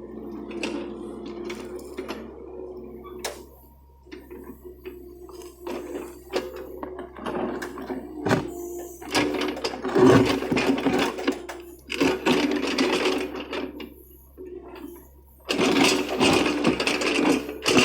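John Deere excavator working: its engine runs with a steady hum. From about nine seconds in, loud stretches of clattering and knocking come and go, with a pause near the end of the second stretch before the clatter returns.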